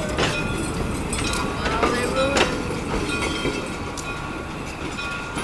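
Railroad cars of a small heritage train rolling slowly past: a steady rumble of steel wheels on the rails with irregular clacks as the wheels pass over rail joints.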